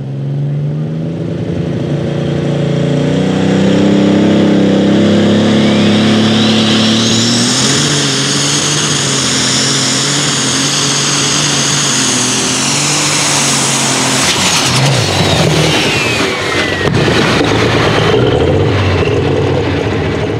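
Light super stock pulling tractor's turbocharged diesel engine under full power on a pull. The engine note climbs over the first few seconds, then a high turbo whine rises to a steady scream, holds for several seconds, and winds down a little after halfway as the tractor comes off power. A lower, rougher engine sound carries on near the end.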